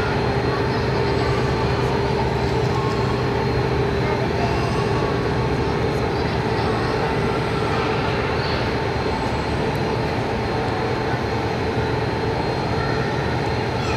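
35-ton overhead crane's hoist running steadily as it lifts a railcar body. It makes a steady hum with a thin high whine over it.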